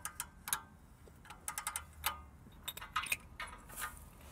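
A hand socket ratchet clicking in short, irregular runs, with a few metallic ticks. It is working a stubborn, part-stripped exhaust flange nut that has just broken loose.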